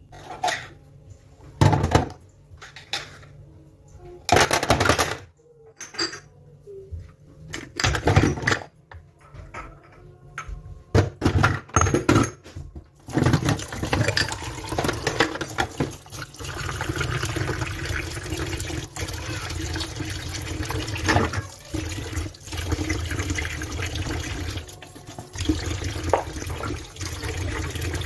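Kitchen tap water splashing into a stainless-steel sink as plastic and glass jars are rinsed. There are short separate bursts of splashing and handling at first, then from about halfway a steady stream pouring into the jars.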